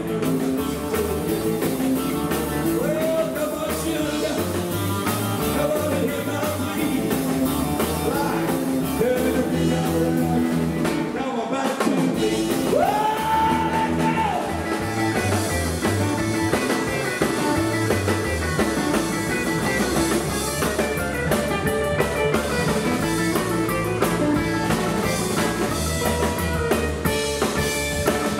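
Rockabilly band playing live: electric lead guitar over upright double bass and drum kit. There is a short break just before the middle, then a long high note that bends up and is held.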